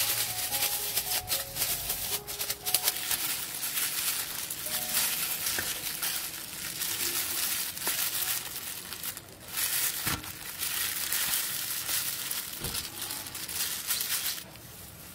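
Disposable plastic gloves crinkling and rustling as gloved hands pull ripe jackfruit bulbs from the fruit's fibrous core, with many small crackles and snaps; the crackling stops shortly before the end.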